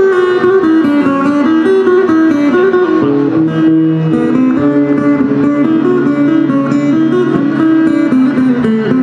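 Kaway acoustic guitar played fingerstyle: a melody of plucked notes over lower bass notes, without singing.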